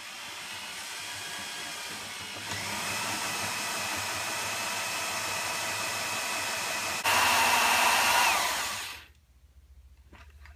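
Corded power drill with a 90-degree right-angle attachment, boring into wood with a Forstner bit: a steady motor whine that steps up in speed about two and a half seconds in and gets louder again about seven seconds in, then winds down and stops about nine seconds in.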